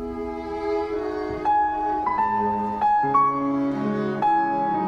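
Instrumental background music, slow and calm, with held notes and a new note or chord entering about every half second to a second.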